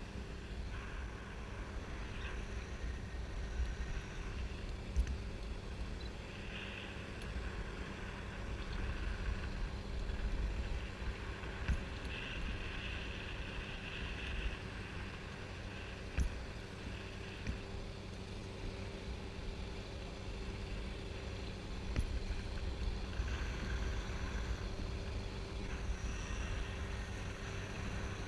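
Wind buffeting the microphone of a camera carried aloft under a parasail: a steady low rumble, with a faint steady hum under it and a faint higher whistle that comes and goes several times. A few light clicks stand out here and there.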